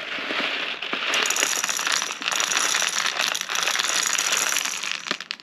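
A batch of G&G 6 mm plastic airsoft BBs poured over a sizing gauge: a dense, continuous rattle of many small clicks as the BBs roll across the holes and drop through, thinning out near the end.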